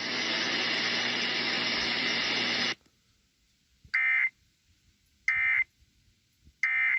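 A loud, steady rush of static with a hum in it that cuts off sharply under three seconds in, then three short warbling data bursts about 1.3 seconds apart: the Emergency Alert System end-of-message (EOM) SAME code that closes an EAS test.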